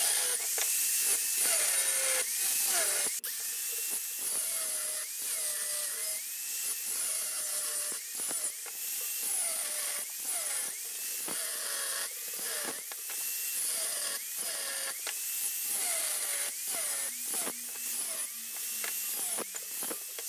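Electric angle grinder grinding steel bar, with a steady hiss of disc on metal. The motor's pitch dips under load and rises again about once a second as the disc is pressed on and eased off in strokes.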